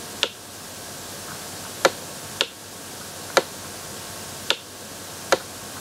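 Stylus tapping and clicking against a tablet surface while writing by hand: six sharp, irregularly spaced clicks over a faint steady hiss.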